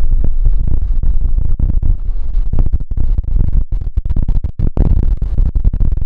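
Wind buffeting the built-in microphone of a compact camera: a loud, choppy low rumble that drowns out most of the ocean surf beneath it.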